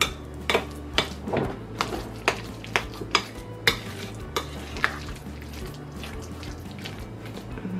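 A spoon clinking and scraping against a ceramic plate in irregular taps, about two a second, while mashing leftover chunks of squash in a sticky syrup filling.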